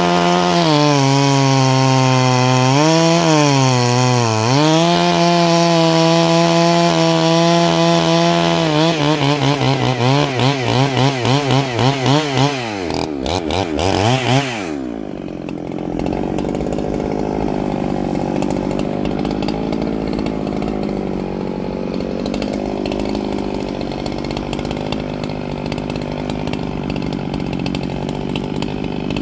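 Clone Husqvarna 395 two-stroke chainsaw cutting through a log at high revs, its pitch dipping twice under load. About nine seconds in the revs start wavering, about three surges a second; it is let off about 15 seconds in and then idles steadily.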